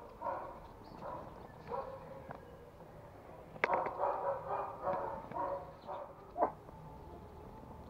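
Dogs barking in runs of short barks, one run near the start and another from about three and a half seconds in: a male Pomeranian barking back at another dog's barking.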